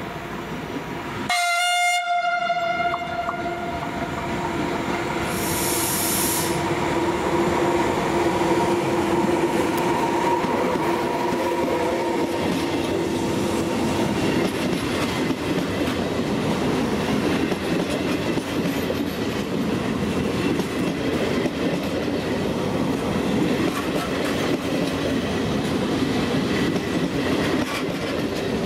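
A short train horn blast about a second and a half in, followed by a passenger train of Trenord coaches running close past a station platform. The steady rumble of wheels on rails carries a clickety-clack over the joints, with a brief hiss about five seconds in.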